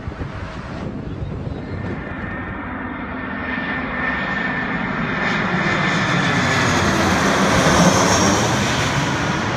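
Twin-engine jet airliner passing low overhead on final approach with its landing gear down: engine noise that swells to its loudest about eight seconds in, with a high whine over the roar, then begins to fade.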